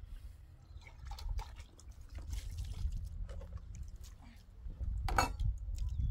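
Water poured from a plastic jug splashing and trickling over dishes being washed by hand, with small clinks and a louder splash about five seconds in, over a steady low rumble.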